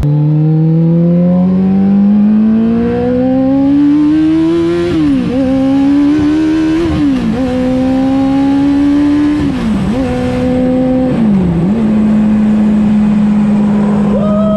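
A Campagna T-Rex's Kawasaki ZX-14R inline-four engine pulls hard through the gears. The pitch rises in long revving climbs with a sharp drop at each of four upshifts, then it settles into a steady cruise.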